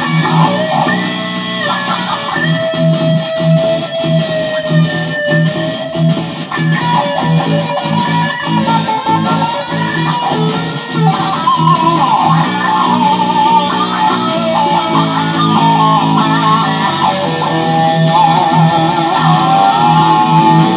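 Electric guitar playing a blues lead solo: held notes bent up and down in pitch and shaken with vibrato, with a repeating low part pulsing underneath.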